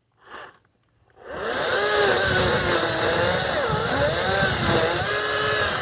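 Kobalt 40V Max cordless electric chainsaw starting up about a second in and then running hard, its motor and chain pitch dipping and rising as it cuts through wood under load.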